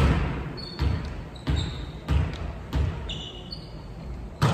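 A volleyball bounced on a hardwood gym floor five times in an even rhythm, about one bounce every 0.7 s, with brief shoe squeaks on the floor. A louder, sharper hit comes near the end.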